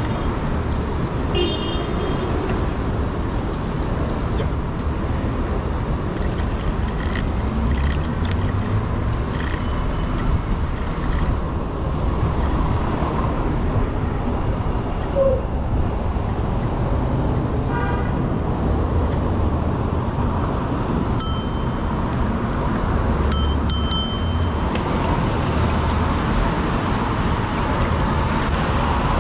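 Steady city traffic mixed with low wind rumble on the microphone of a moving electric scooter, with a few short high-pitched tones about three-quarters of the way through.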